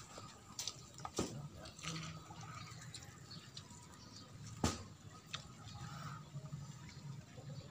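Faint dripping and trickling of water, with a few sharp knocks; the loudest knock comes about four and a half seconds in.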